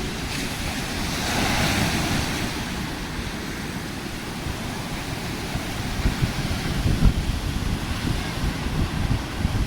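Sea surf washing in, with a swell of hiss about a second in, and wind buffeting the microphone in low rumbling gusts that grow stronger in the second half.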